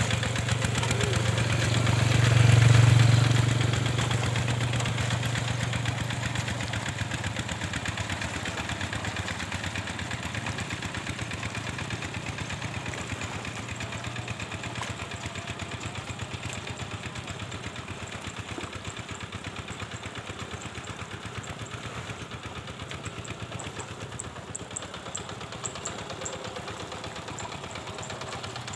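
Two-wheel hand tractor's engine running steadily with a rapid even beat as it ploughs the flooded paddy. It is loudest about two to three seconds in, then slowly fades.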